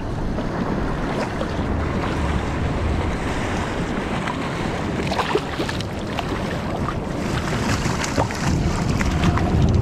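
Steady wind noise on the microphone over water lapping against a kayak hull on open sea, with a few light knocks.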